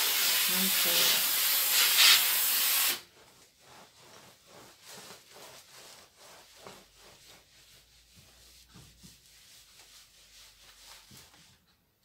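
Steam iron releasing a loud burst of steam that hisses for about three seconds and stops abruptly. Then the iron slides quietly back and forth over a terry towel with faint rubbing strokes.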